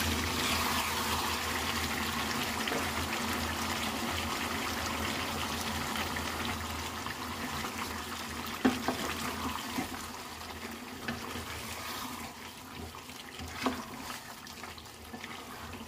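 Chicken-and-potato masala gravy sizzling and bubbling in a pot while a spoon stirs it, with a couple of sharp knocks of the spoon against the pot. It grows fainter in the second half.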